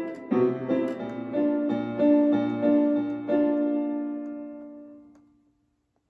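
Electronic keyboard with a piano sound playing the closing bars of a song: a few chords and notes, then a final chord held and fading out near the end.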